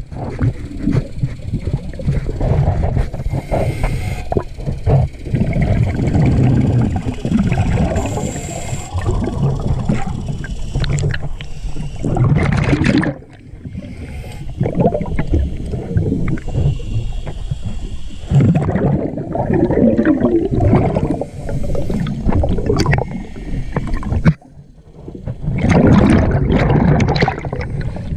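Underwater sound of a diver's breathing regulator and exhaled bubbles, rumbling and gurgling in surges a few seconds long. It drops briefly quieter twice, about 13 seconds in and again near 25 seconds.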